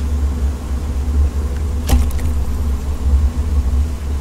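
Metal ladle stirring noodles in a large aluminium pot, with one sharp clink against the pot about two seconds in, over a steady low rumble.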